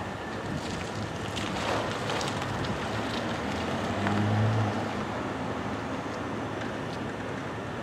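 Steady outdoor wind and traffic noise, with a passing vehicle's engine hum swelling briefly about four seconds in.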